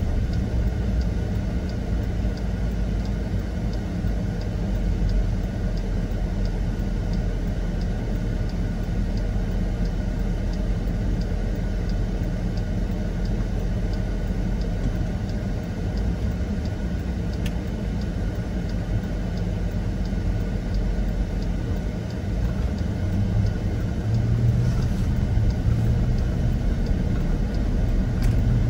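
Steady low vehicle rumble with faint, regular high ticking, growing a little louder in the last few seconds.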